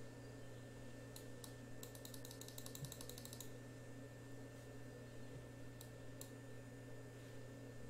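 Faint clicking at a computer over a steady low electrical hum: a few single clicks, then a quick even run of about ten ticks a second for over a second, then two more clicks about six seconds in.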